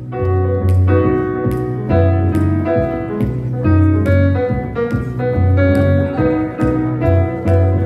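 Live instrumental intro by a small jazz band: a grand piano plays chords and melody over the low notes of an upright double bass.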